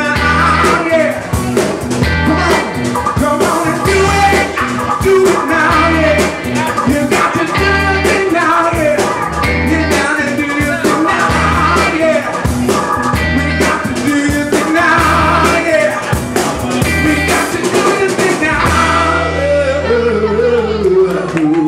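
Live band music with a male singer's voice over electric guitar and drums, keeping a steady beat.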